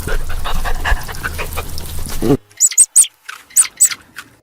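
A dog making close, noisy vocal sounds. About two seconds in it cuts off suddenly and gives way to a run of short, sharp, high-pitched calls from a small animal.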